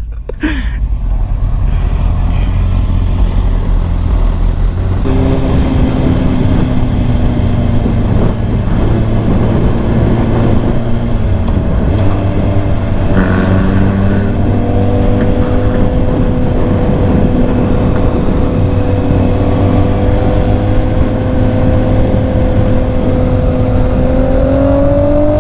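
Motorcycle engine running at a steady cruising speed under heavy wind rush, heard from the rider's camera. The engine note steps up about five seconds in, shifts again partway through, and rises near the end.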